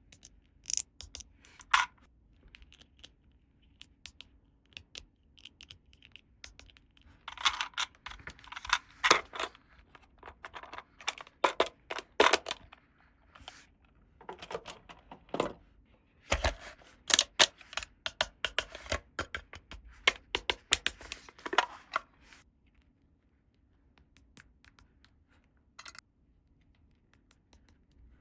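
Hands handling and unpacking plastic toy pieces and packaging: scattered clicks, taps and short rustles, busiest in two long stretches, then mostly quiet for the last several seconds.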